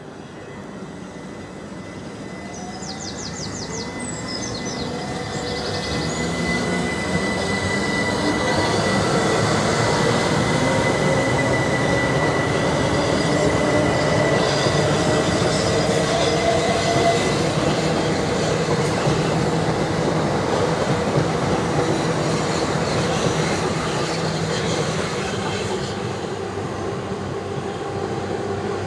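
Serco Schweerbau SPML15 rail grinder DR79200 passing by on the track, its engines and wheels growing louder to a peak about ten seconds in, then slowly fading. A steady high-pitched whine sounds through the first half.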